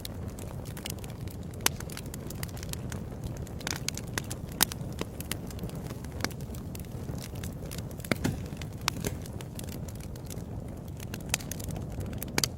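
Wood fire in a fireplace crackling: a steady low rumble of flame with frequent irregular sharp pops, a few noticeably louder than the rest.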